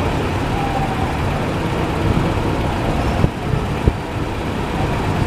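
Steady road traffic noise with a low engine rumble from passing cars and trucks. A little past halfway, two sharp knocks about half a second apart.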